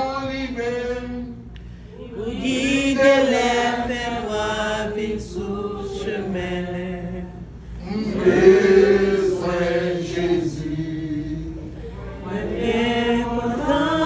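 Voices chanting a song, in sung phrases of a few seconds with short breaks between them: about one and a half seconds in, near eight seconds and again near twelve.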